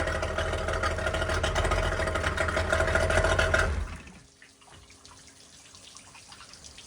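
30 hp Yamaha two-stroke outboard motor idling steadily, then shut off about four seconds in, its sound dying away within half a second and leaving only a faint background.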